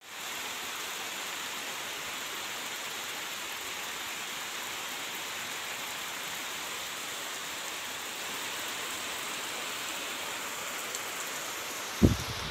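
Steady rain falling, an even hiss. Near the end, a sudden loud low crack marks the start of a thunderclap.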